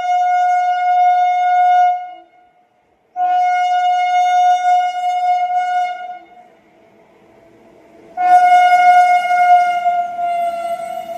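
Indian Railways locomotive horn sounding three long single-note blasts: one ending about two seconds in, one from about three to six seconds, and one starting about eight seconds in. The last blast slides slightly lower in pitch near the end, with the faint rumble of a running train underneath.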